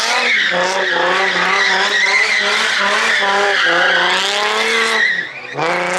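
Sports car doing donuts: the engine revs up and down in repeated surges while the tyres squeal continuously. The revs drop briefly about five seconds in, then rise again sharply.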